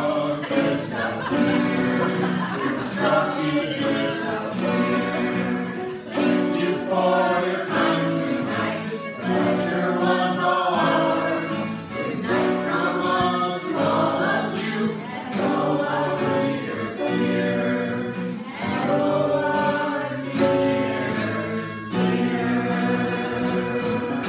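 A small group of men and women singing a song together, with an acoustic guitar accompanying them.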